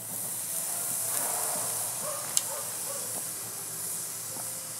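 Marinated beef short ribs sizzling on a hot cast-iron grill plate over charcoal. The steady hiss starts as the meat is laid down, with one sharp click a little over two seconds in.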